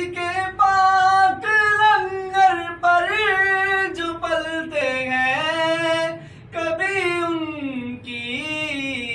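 A man's solo voice singing the opening of a naat in long held notes that glide up and down, with no clear words, one voice only.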